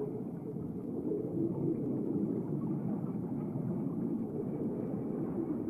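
Steady low, muffled rumble of underwater ambience, with no distinct events.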